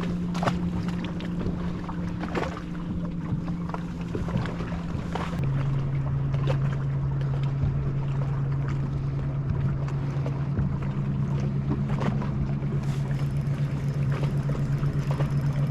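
Boat motor running with a steady drone, its pitch dropping a step about five seconds in, with scattered short knocks over a rushing noise.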